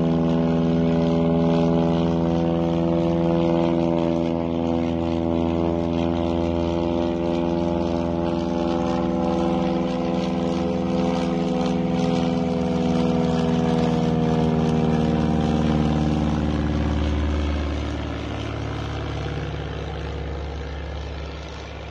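Agricultural crop-spraying plane's engine and propeller droning steadily as it flies low over fields, its pitch and loudness sinking slightly over the last few seconds.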